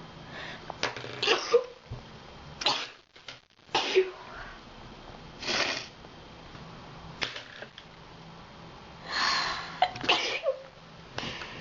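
A run of sneezes: about six short, sharp bursts, one every second or two.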